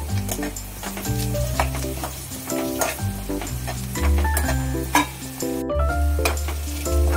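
Sliced onions sizzling in oil in a metal kadai, stirred and scraped with a spatula, under background music with a bass line and a steady beat.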